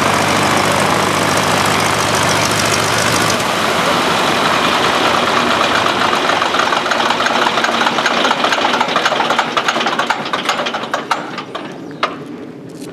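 Boeing-Stearman biplane's radial engine idling steadily on the ground, then shut down: near the end its firing strokes come separately and slow as it runs down and stops.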